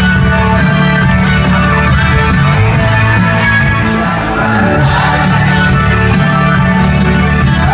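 Loud music with a singing voice, played by a DJ over the sound system to a dancing crowd.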